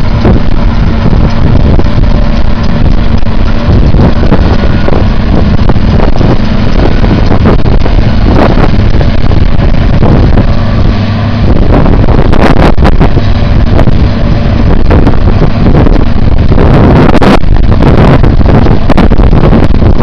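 Farm tractor engine running steadily under heavy wind buffeting on the microphone, the gusts coming harder and more broken in the second half.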